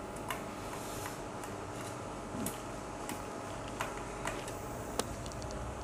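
Light scattered clicks and taps of a hard drive and small parts being handled and fitted into a Dahua NVR's chassis, about one click a second.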